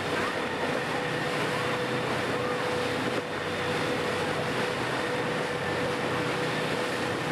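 Steady drone of a motorboat's engine underway, with wind and rushing water.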